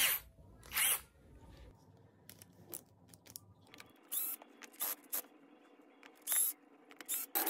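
Several short, sharp bursts, each a fraction of a second, from a cordless drill-driver worked on the screws of an old cordless drill's plastic housing to take it apart.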